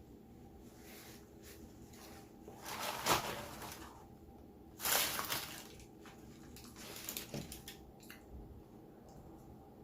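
Close-miked eating sounds: wet chewing and mouth noises from a person eating a chicken sandwich, with two louder noisy bursts about three and five seconds in and a few small clicks later.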